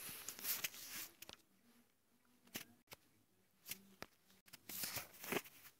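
Faint rustling with scattered light clicks, coming and going in short patches.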